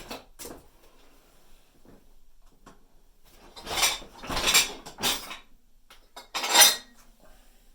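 Dishes and cutlery rattling in a dishwasher rack as it is opened and handled, in four short bursts after a few quiet seconds with small clicks.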